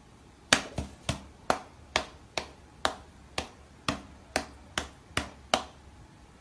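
A run of about a dozen short, sharp taps or clicks, roughly two to three a second, starting about half a second in.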